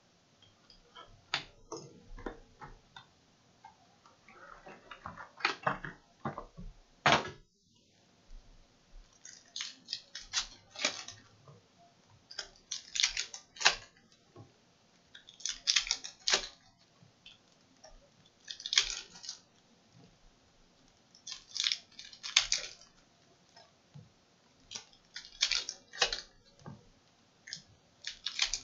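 Trading-card pack wrappers being torn open and the cards inside handled, crinkling and crackling in short bursts every few seconds.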